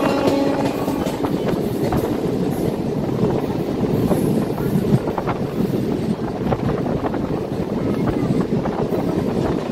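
MEMU electric train running along the track, heard from on board: a steady rumble of wheels on rail with occasional clicks and knocks.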